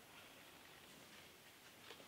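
Near silence: hall room tone, with one faint click near the end.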